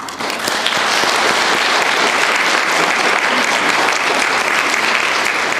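Audience applauding, breaking out suddenly and keeping up steadily.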